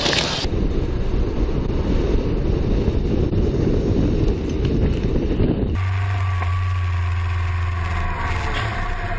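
Wind buffeting a moving camera's microphone as a rough, steady rumble. About six seconds in it cuts to a motorcycle engine running at a steady low pitch.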